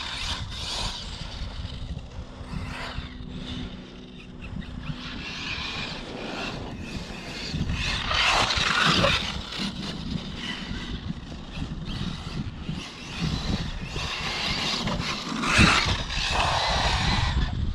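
Electric Arrma Mojave RC desert truck driving across grass at a distance, its motor and tyres surging and fading with the throttle. There is a sharp knock about fifteen and a half seconds in.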